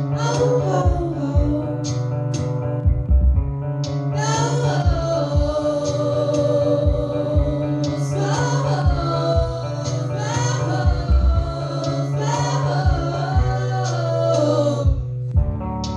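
Song with a woman singing long, wavering held notes over electric guitar and a steady beat; the voice stops about a second before the end, leaving the guitar.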